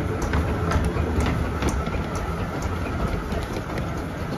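Bure Valley Railway's 15-inch gauge steam locomotive No. 7 'Spitfire' and its tender running slowly past, a low rumble with irregular sharp clicks from the wheels on the track.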